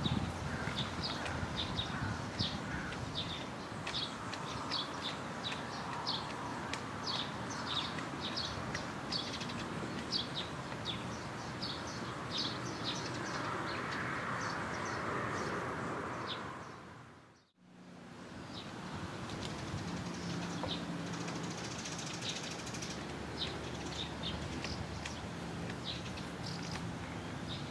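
Outdoor ambience with a small bird chirping over and over in short, quick notes over a steady background hiss. The sound fades away and comes back about two-thirds of the way through.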